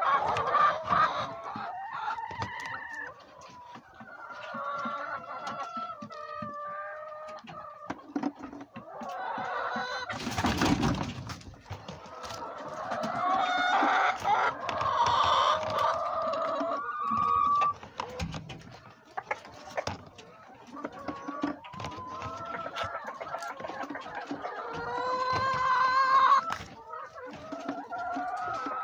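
Chickens clucking and calling in the coop, with drawn-out pitched calls, and a brief loud scuffling noise about ten seconds in.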